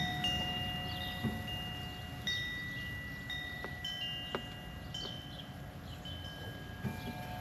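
Wind chime ringing: several metal tones struck at irregular moments, each ringing on and fading slowly, with a few faint clicks in between.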